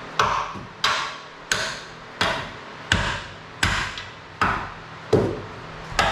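A steady run of about nine hammer blows, one every three-quarters of a second or so, each with a short ring: tapping the swapped-in 6.0 LS engine into place on its motor mount.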